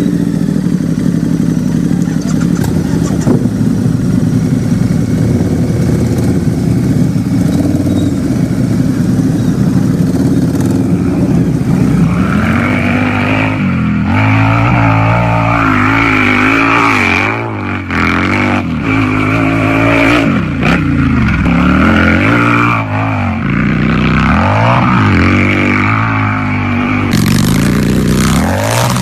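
Harley-Davidson V-twin motorcycle engine idling steadily for about the first twelve seconds, then revved again and again, its pitch rising and falling with each blip of the throttle. A hiss comes in near the end.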